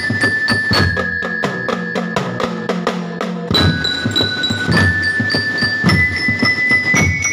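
A street drum band of bass, snare and tenor drums playing a steady beat, with a high melody line held over the drums. About one and a half seconds in the bass drums drop out while the snares keep going, then they come back in with a loud hit about three and a half seconds in.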